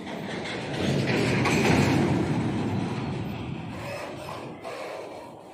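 Freight train of covered wagons rolling past on the track. The wheel and wagon noise swells about a second in and fades toward the end.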